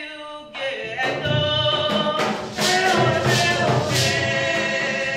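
Music: singing over a regular percussion beat, coming in fuller about a second in.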